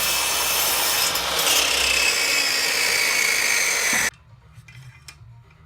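Power saw cutting through scrap timber, a loud steady cutting noise that stops suddenly about four seconds in, followed by a few faint knocks.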